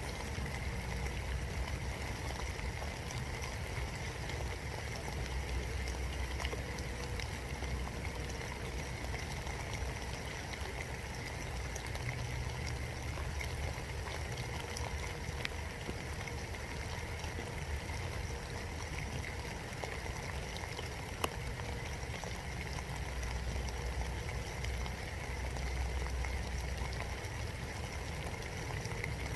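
Steady rain falling, heard from inside a birdhouse, with scattered drop ticks and one sharper tick about two-thirds of the way through.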